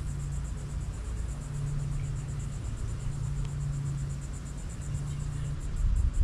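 Insects trilling: a steady, rapidly pulsing high chorus, over a low steady hum that breaks off and comes back a few times.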